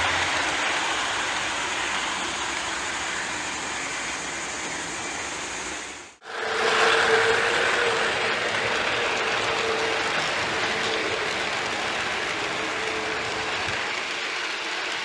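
Lionel model train of F3 diesel locomotives and passenger cars running on its track: a steady rolling rumble and clatter of wheels on the rails. The sound drops out briefly about six seconds in and comes back with a steady whine added.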